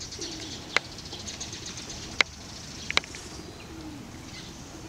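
Low, falling pigeon coos twice, one near the start and one late on, over high chirping of small birds. Three sharp clicks stand out as the loudest sounds.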